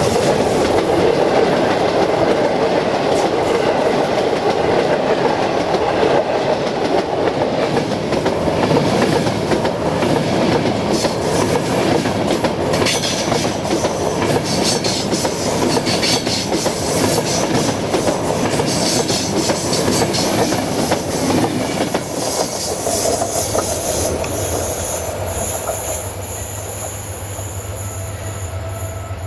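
Passenger train coaches rolling past close by: wheels clattering over the rail joints in quick, irregular clicks over a steady rumble, which drops away in the last few seconds as the train moves off.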